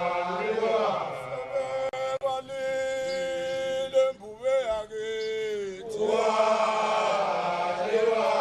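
A group of voices chanting a song. In the middle a single line of long held notes wavers and slides downward, then the fuller chanting comes back in.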